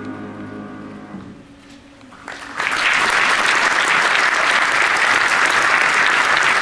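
The final held chord of the choir and piano fades away. After a short hush, an audience breaks into applause about two and a half seconds in and keeps clapping steadily and loudly.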